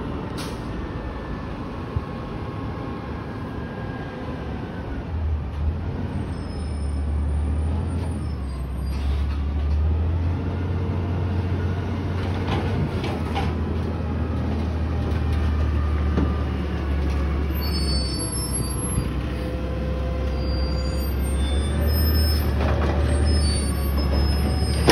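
McNeilus front-loader garbage truck's diesel engine running as the truck drives up. A deep drone sets in about five seconds in and grows louder, with whining tones that rise and fall as it revs.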